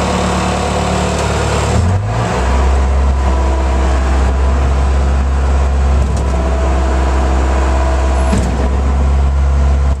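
Bobcat 843 skid steer's 54-horsepower Isuzu diesel running steadily, heard from inside the cab; about two seconds in its note drops to a lower, heavier tone and holds there.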